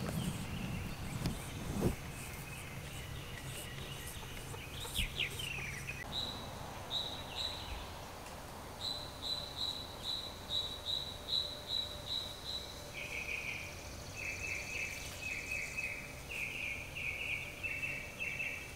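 Small birds chirping: a run of short, evenly spaced chirps, about two or three a second, in the middle, then a lower, faster series of chirps in the second half, over faint outdoor background noise.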